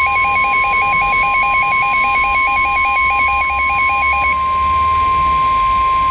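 NOAA Weather Radio warning alarm tone: a steady, single-pitched tone near 1 kHz. A rapid, two-pitch beeping alarm runs over it and stops about four seconds in. It signals that a warning broadcast, here a flash flood warning, is about to follow.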